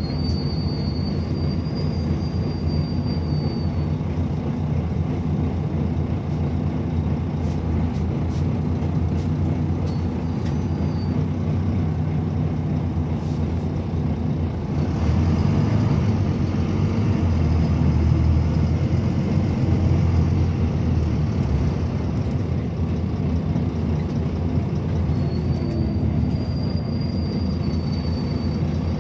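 Interior sound of a Volvo B9TL double-decker bus on the move: its diesel engine and drivetrain run steadily under road noise, growing louder for several seconds about halfway through. A faint high whine comes and goes near the start and again near the end.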